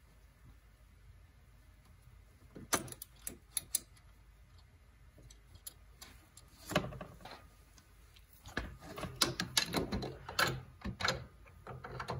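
Scattered sharp metal clicks and clinks from hand tools and brake-caliper hardware being handled. About eight seconds in they turn into a busy run of quick clicks and knocks.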